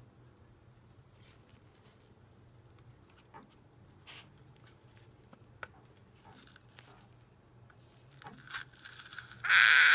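Faint, scattered crackles and light scrapes as a heated metal spoon is pressed against a cardboard toilet-paper tube, scorching it. Near the end a much louder, sustained sound starts abruptly.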